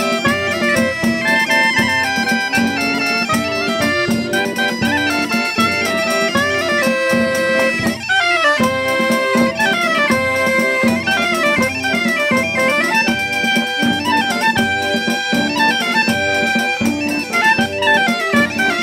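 Traditional folk dance music: a quick melody over a steady drone, with a regular drum beat.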